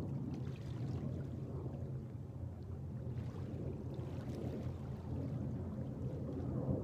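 A steady low rumble with faint light splashes of small waves at the water's edge.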